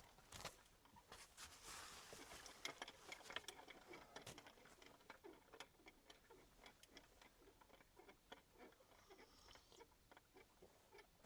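Near silence with faint, irregular small clicks and ticks, somewhat denser in the first few seconds.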